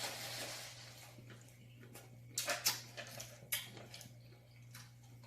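Quiet eating at a table: a handful of short, sharp clicks and smacks of chewing and cutlery, over a steady low hum.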